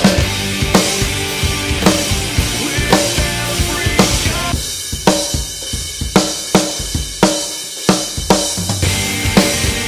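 Drum kit playing a rock beat with a backing song, centred on a custom zipper snare drum: a split-vented plywood shell that makes a loud, dry snare with a quick decay. Around the middle the backing thins out for a few seconds, leaving mostly the drums.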